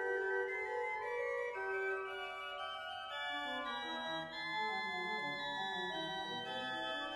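Pipe organ (the 1994 Van Vulpen organ) playing Baroque polyphonic music, several voices moving over sustained notes. About halfway through, a lower line comes in and moves step by step beneath the upper parts.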